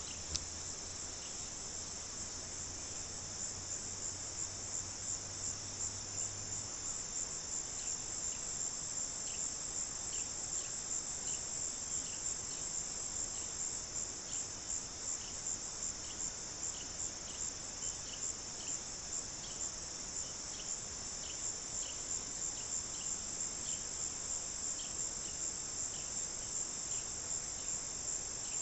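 Late-summer chorus of insects: a steady, high-pitched trill, pulsing about twice a second, with scattered softer chirps beneath it.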